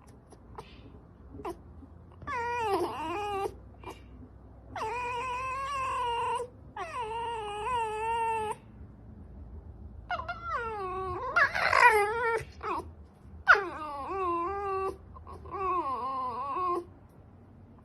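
A fox giving a series of about seven drawn-out cries, each a second or more long, with a wavering pitch. One near the middle is louder and harsher than the rest.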